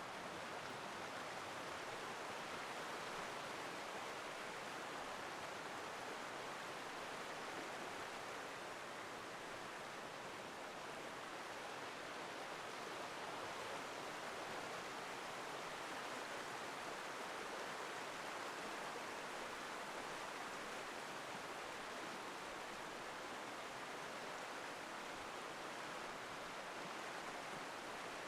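Steady rushing of a forest river tumbling over small waterfalls, an even noise with no breaks.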